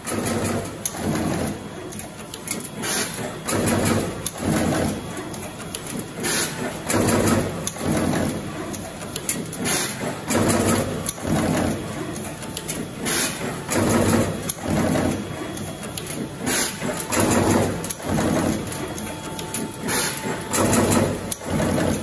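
Automatic wire cut-strip-crimp machine running through its cycle: a pattern of mechanical clacks and short hisses of air that repeats every few seconds as the press crimps terminals onto the wires.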